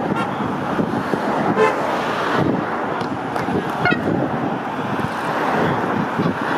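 Cycling team support cars driving past in a convoy, engines and tyres making a steady noise, with a short horn toot about a second and a half in and another about four seconds in.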